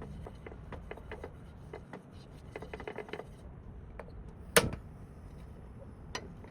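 Light clicks and taps of cooking utensils and dishes being handled, with one loud sharp knock about four and a half seconds in and a softer one near the end.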